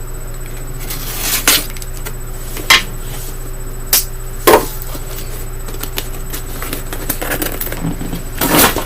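A package being opened by hand: a series of short rustles, rips and knocks, about six in all, the loudest near the middle, over a steady low hum.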